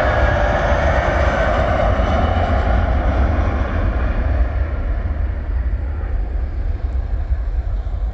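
Jet engines of an Airbus A320-family airliner at take-off thrust during the take-off roll and lift-off. A whine falls in pitch over the first couple of seconds as the aircraft passes, then the sound settles to a steady rumble and the higher tones fade as it climbs away.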